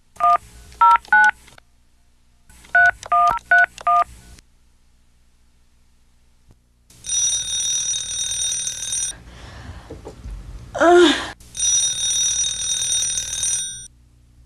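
Touch-tone telephone dialing: a string of short two-tone beeps in two quick bursts. A few seconds later the phone rings twice, each ring about two seconds long, with a brief voice sound between the rings.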